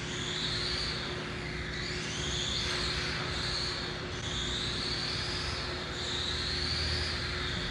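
Electric radio-control cars running on an indoor carpet track: a high motor whine rising and falling as they speed up and slow down, over a steady low hum.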